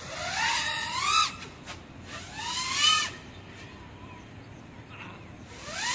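GEPRC Mark5 5-inch FPV freestyle quadcopter's motors and propellers whining up in pitch on two throttle punches, each about a second long and cut off sharply, with a third starting near the end.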